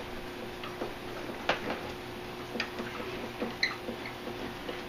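Scattered light clicks and ticks from the hand-turned blade-lifting crank of a Chicago Electric 10-inch benchtop table saw as the blade is raised. The lifting handle is apparently bent and wobbles badly as it turns. A faint steady hum runs underneath.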